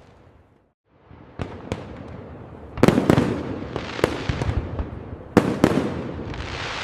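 A fireworks display: the sound drops out for a moment, then shells burst with sharp bangs, the loudest cluster about three seconds in. A dense crackling fizz follows near the end.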